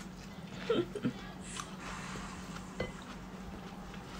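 A few soft clicks and clinks of eating utensils against dishes, about a second in and again near three seconds, over a steady low hum.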